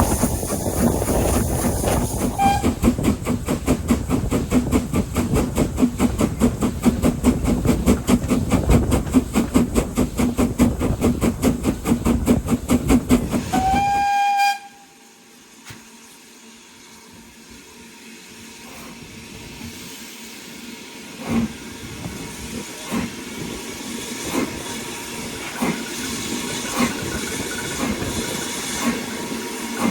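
BR Standard Class 4MT 4-6-0 steam locomotive 75069 working hard, its exhaust beating in a rapid, even rhythm, with a short toot of its whistle early on and a whistle of about a second around the middle. The loud exhaust then cuts off suddenly, leaving a much quieter rumble of the train on the rails with regular clicks that grows louder toward the end.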